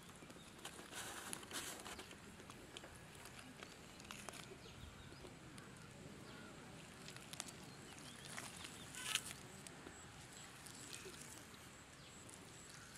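Faint handling sounds of a plucked turkey carcass being pulled apart and cut by hand: scattered clicks and rustles, loudest about nine seconds in.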